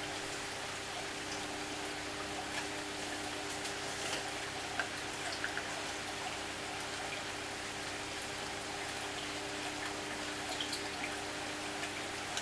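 Reef aquarium water trickling and splashing steadily, with small scattered drips and a steady low hum underneath.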